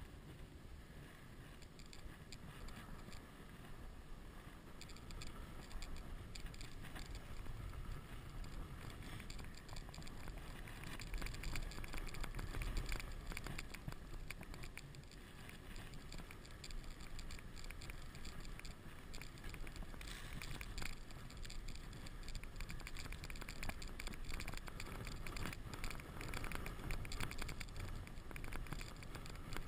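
Wooden toboggan sliding fast over packed snow: its runners give a continuous scraping hiss with crackles and bumps from the snow surface, swelling louder in stretches as the sled picks up speed.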